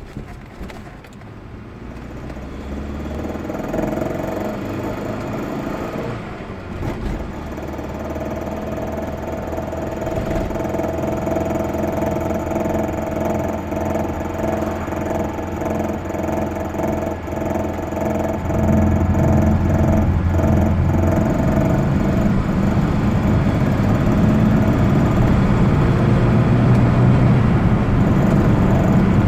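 Audi 80 B3 engine running, its revs raised in steps, with a knocking that comes in only at certain revs. The owner doubts it is the engine itself and suspects the instrument cluster or a relay.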